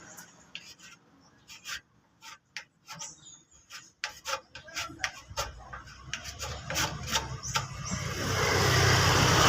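Irregular short scraping strokes of hand work on the body filler of a dented motorcycle fuel tank, being sanded or scraped smooth. A louder rushing noise builds near the end.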